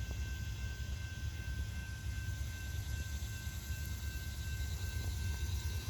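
Freight grain train rolling past, a steady low rumble.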